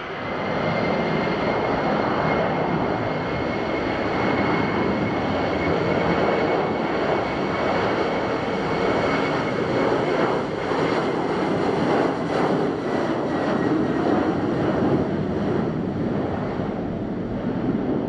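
Boeing 737-800's CFM56-7B jet engines at takeoff thrust during the takeoff roll: a loud, steady engine noise that swells just after the start, with a thin high fan whine that fades out about two-thirds of the way through.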